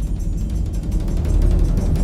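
Music with heavy, booming bass drums and dense rapid percussion, growing louder about a second in.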